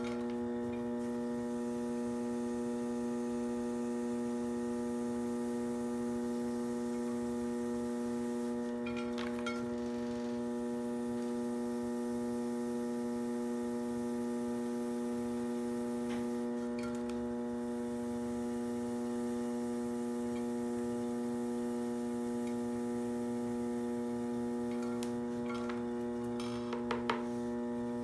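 Electric potter's wheel running with a steady electrical hum, a stack of even overtones, while a trimming tool works a leather-hard clay pot. A few brief scraping clicks of the tool come through, about nine seconds in, around seventeen seconds, and in a small cluster near the end.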